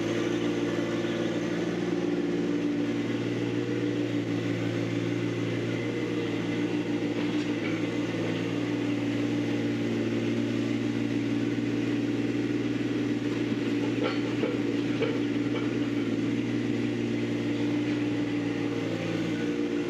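John Deere 1025R subcompact tractor's three-cylinder diesel engine running steadily at an even pitch as the tractor moves about.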